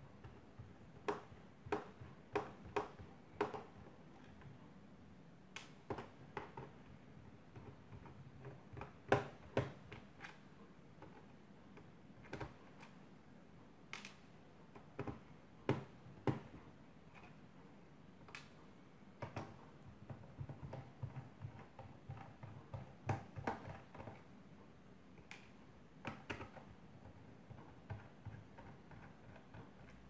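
Irregular sharp clicks and taps from a small precision screwdriver working screws out of a laptop's plastic underside, some in quick clusters of two or three.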